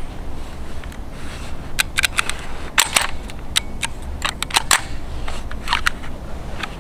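AR-style CO2 BB rifle firing in an irregular scatter of sharp pops and clicks, some in quick pairs, rather than a steady full-auto burst. The shooter puts this down to the gun jamming up.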